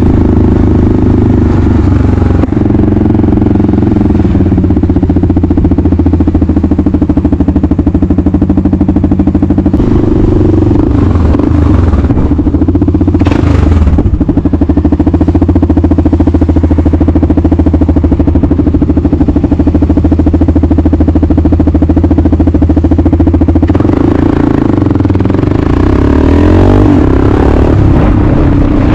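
Kawasaki KLR 650's single-cylinder four-stroke engine running, loud and close to the microphone, while the bike is ridden. Its note rises and falls a few times as the throttle opens and closes.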